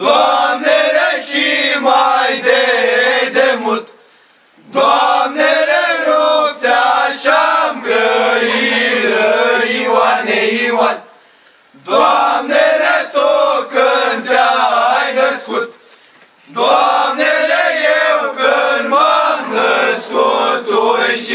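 Group of young men singing an old Romanian antiphonal Christmas carol (colindă) unaccompanied, in four chant-like phrases of a few seconds each with a short break of about a second between them.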